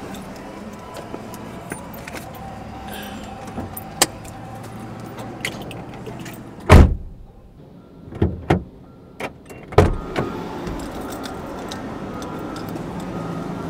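Car door shutting with a heavy thump about seven seconds in, cutting off the outside noise, followed by a few more knocks and clicks of handling inside the car; scattered clicks and rattles before it.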